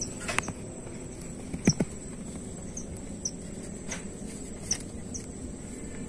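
Outdoor background of a steady thin high insect whine with short, high bird chirps every second or so, broken by a few sharp knocks from handling the phone, the loudest about two seconds in.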